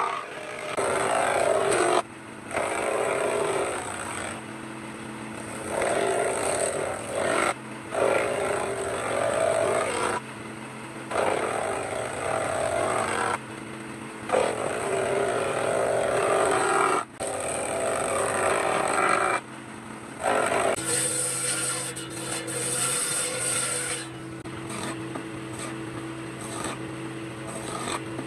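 A power tool working wood, in a run of short stretches that start and stop abruptly. Near the end it settles into a steadier, quieter running sound with a low hum.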